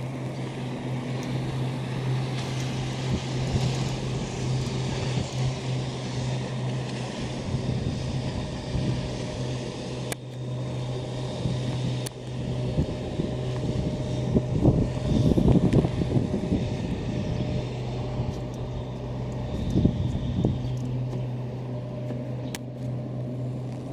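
Outdoor ambience with a steady low motor drone and a wash of distant noise. Wind rumbles on the microphone in gusts, strongest a little past the middle and again a few seconds later.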